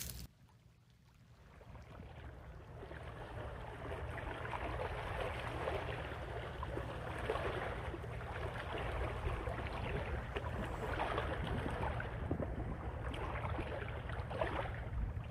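Steady outdoor ambience of wind and sea: a low wind rumble on the microphone with a fine crackle of water or leaves, fading in over the first few seconds.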